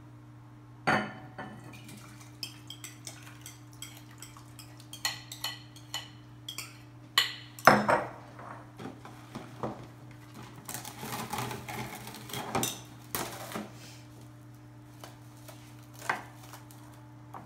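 A spoon and glass bowls clinking, knocking and scraping at irregular intervals as sauce is stirred and spooned from one glass bowl into another. The sharpest knocks come about a second in and near the middle.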